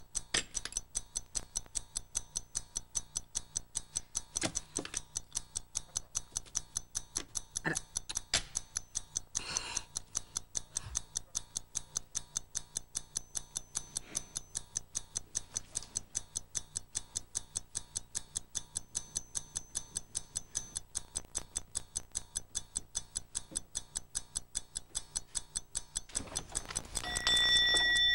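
Clock ticking fast and evenly, marking time against a 20-minute limit. Near the end an alarm-like ringing tone starts.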